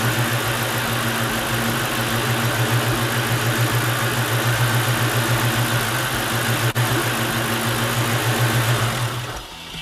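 Ford 4.6-litre V8 of a 2000 Mustang GT idling steadily, with an even pulse. It stops about nine seconds in.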